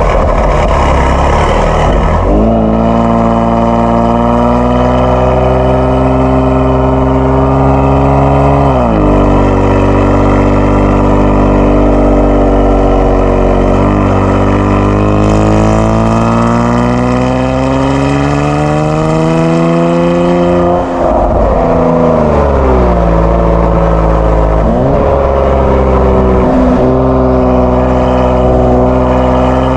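Kia Stinger 3.3 twin-turbo V6 running through a JSR Performance aftermarket exhaust while driving. Its pitch climbs steadily under acceleration and drops sharply several times, as at upshifts.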